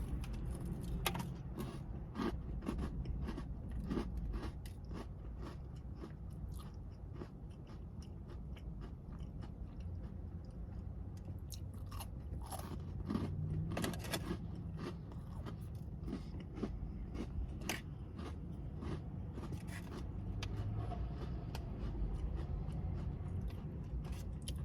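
Crunchy chocolate chunk cookies being bitten and chewed close to the microphone: many sharp, irregular crunches over a low, steady background rumble.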